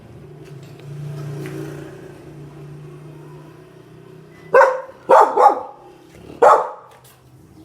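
A dog barking loudly four times in quick succession in the second half, over a low steady hum.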